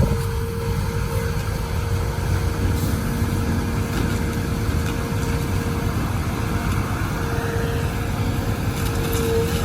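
Excavator's engine running steadily: a continuous low rumble with a steady whine held over it.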